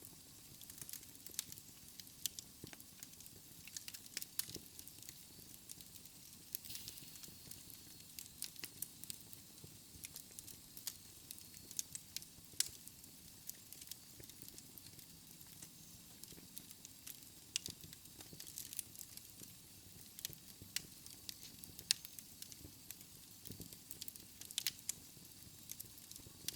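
Wood fire burning in a fireplace: irregular crackling and popping of the burning logs over a soft low rush of flames, with a few sharper, louder pops.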